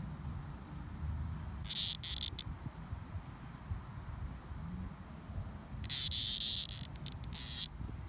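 Male Linne's cicada (Neotibicen linnei), held in the fingers, giving high buzzing bursts: a short cluster about two seconds in and a longer, broken buzz from about six seconds to near the end. This is the squawk a male cicada typically makes when handled.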